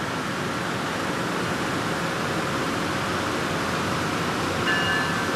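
Steady rumble of a LORAM rail grinder's diesel engines, then its multi-note horn starts sounding near the end.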